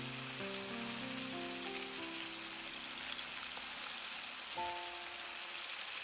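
Cornstarch-coated catfish pieces deep-frying in hot oil, a steady sizzle, with soft background music playing sustained notes.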